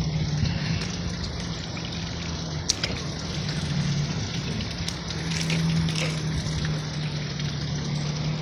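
Steady low hum under a constant rushing, water-like noise, with a few light clicks and knocks.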